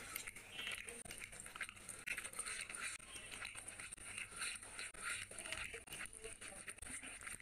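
Close-miked eating sounds: a continuous run of wet clicks and smacks from chewing grilled chicken and from fingers tearing meat off the whole bird.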